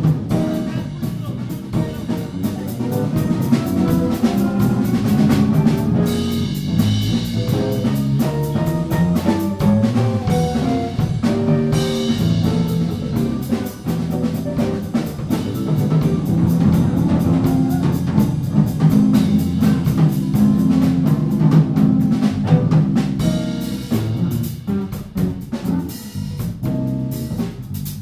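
Live instrumental jazz trio of hollow-body electric guitar, electric bass and drum kit playing together, with melodic guitar runs over the bass line and a steady cymbal-led drum rhythm. It gets somewhat quieter near the end.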